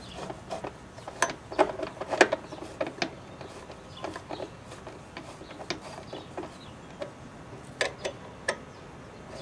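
Irregular small metallic clicks and taps of a hand tool and metal parts as an RV water heater's burner assembly is put back together.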